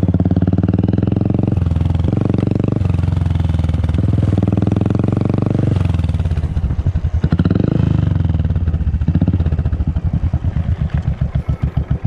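Royal Enfield Classic 500 single-cylinder engine exhausting through an aftermarket Dolphin silencer while riding, a deep bass thumping note with a few brief dips. About halfway it comes off the throttle and the exhaust breaks into separate slow thumps, about four or five a second, as the bike slows toward idle: the "dug dug" sound of a Bullet.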